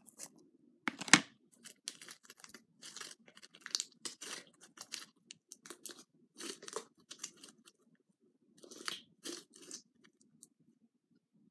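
Fluffy blue slime being squeezed and pulled by hand, giving off irregular crackling pops in short bursts with brief quiet gaps; the sharpest pop comes about a second in.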